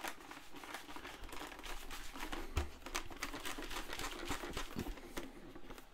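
Folded paper name slips rustling and clicking as they are shaken and mixed inside a plastic stormtrooper helmet, with a low bump about two and a half seconds in.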